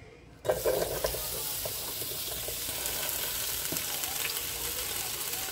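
Chopped white and red onions frying in hot oil in a pan: a steady sizzle that starts suddenly about half a second in, as the onions hit the oil.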